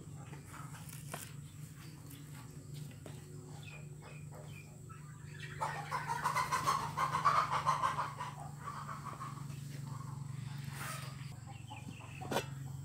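An animal call, a run of quick clucks lasting about two seconds midway, over a steady low hum. A single sharp knock comes near the end.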